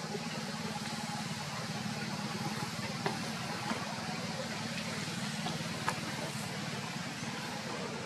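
Steady outdoor background noise with a low, even hum and a few brief faint clicks, the sharpest about three and six seconds in.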